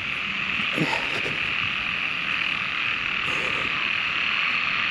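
Dense chorus of frogs calling, a steady din. A couple of short, lower sounds stand out about a second in and again past three seconds.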